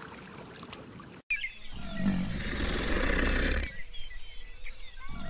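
Faint trickle of aquarium air bubbles, then after an abrupt cut a loud, deep animal roar lasting about two seconds; the roar starts again near the end.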